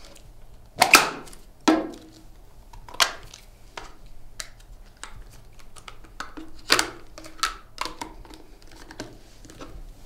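Handling clicks and knocks of a foldable silicone travel kettle being collapsed and packed up by hand: a sharp click about a second in, another just before two seconds, then scattered smaller clicks and taps of the plastic housing.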